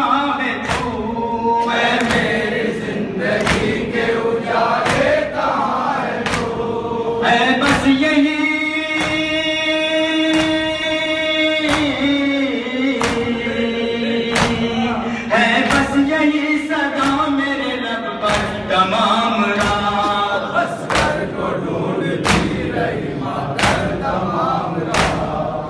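Men's voices singing a noha (Muharram lament) in chorus, with long drawn-out notes, over rhythmic matam chest-beating: a sharp hand-slap about every 0.7 seconds.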